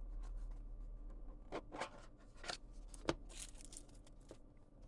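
Faint handling sounds of a pen case: light clicks, taps and rustles, with a few sharper taps about one and a half to three seconds in.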